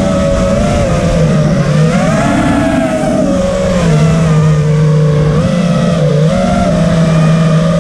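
Loud buzz of a 4S mini FPV racing quadcopter's brushless motors and propellers, recorded from the onboard camera. Several pitches rise and fall together as throttle changes during the flight, over a rush of prop wash and air.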